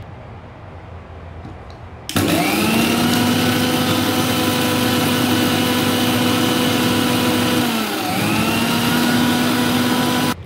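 Electric mixer grinder with a steel jar grinding soaked basmati rice into a paste. The motor starts about two seconds in with a quickly rising whine and runs steadily. Near eight seconds it winds down briefly and starts again, then cuts off just before the end.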